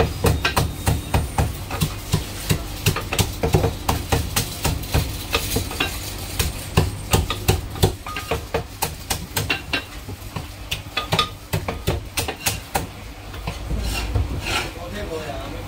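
Two Chinese cleavers chopping cooked chicken on thick round wooden chopping blocks: a quick, uneven run of sharp chops, several a second.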